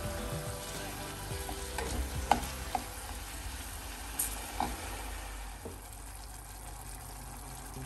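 Diced pancetta and onion sizzling in a stainless steel pot while being stirred with a wooden spoon. The spoon knocks sharply against the pot a few times, around two seconds in and again near four and a half seconds.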